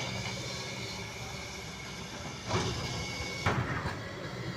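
Kobelco excavator's diesel engine running steadily with a thin high whine over it; the whine cuts off sharply about three and a half seconds in, with a couple of short knocks around then.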